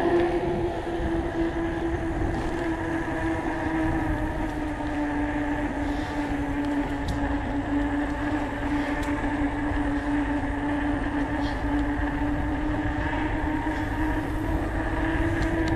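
Electric bike's motor whining steadily under way, its pitch sagging a little midway and climbing again near the end, over a low rumble of wind and tyres.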